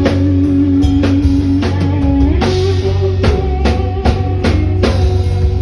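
Live rock band playing: a drum kit with kick and cymbal hits, bass and guitar holding sustained notes.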